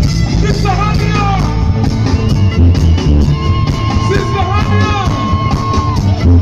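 Live reggae band with highlander folk musicians, loud and bass-heavy: a steady reggae bass and drum groove under a high melody that bends about a second in and holds one long note through the middle.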